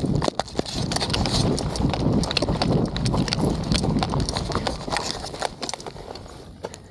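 Running footsteps crunching on dry stony ground, with gear and rifle rattling at each stride and wind rumbling on the microphone; the footfalls grow fainter near the end.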